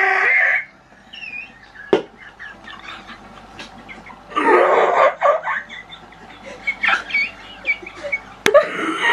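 A woman laughing hard in loud, high-pitched fits: one at the start, another around the middle, and a third near the end, with smaller giggles in between.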